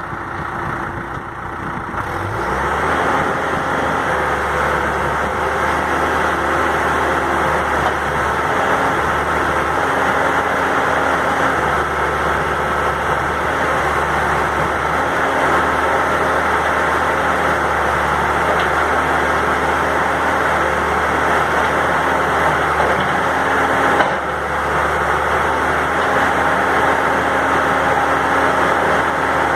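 John Deere 310S loader backhoe's diesel engine running steadily.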